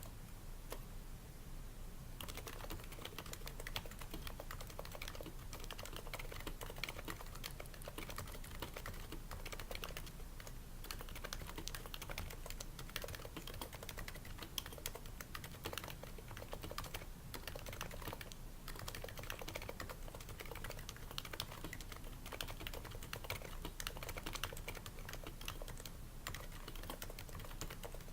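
Typing on a Happy Hacking Keyboard Pro 2 with Topre switches fitted with o-rings to dampen the keystrokes, the slider rails lubed and the case lined with shelf liner. It is a continuous run of keystroke clicks at a quick, even pace, with a few short pauses.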